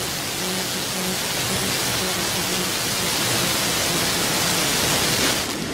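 Modified pulling tractor's engine running flat out while dragging a weight sled, heard as a steady noisy drone with a hissing top and a faint low engine note underneath.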